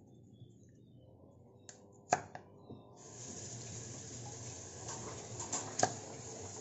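Chef's knife chopping carrot on a wooden chopping board: irregular sharp knocks of the blade striking the board, loudest about two seconds in and again near the end. A steady hiss starts about three seconds in.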